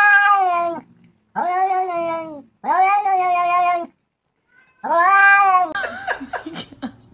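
A cat meowing in four long, drawn-out calls of about a second each, with short pauses between them. After about six seconds the calls give way to a few scattered clicks and knocks.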